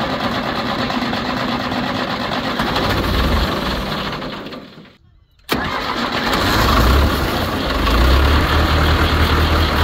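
John Deere 2020's four-cylinder diesel engine being cranked on the starter after its fuel system was primed through a newly fitted fuel transfer pump. About five seconds in the sound breaks off and starts again, and the engine fires up and runs steadily.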